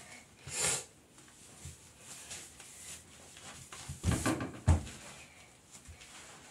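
Handling noise: a brief rustle about half a second in, then a cluster of knocks ending in one sharp thump a little before five seconds in, as objects are moved about and set down close to the microphone.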